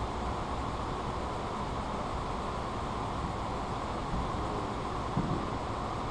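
Steady, even machine noise with no distinct knocks or changes.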